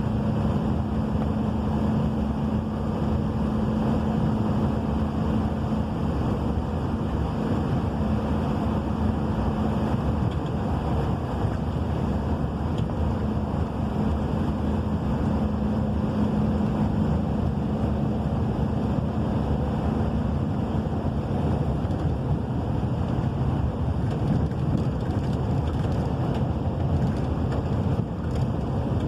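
Heavy rain with a steady low rumble, and a low hum that drops out about two-thirds of the way through.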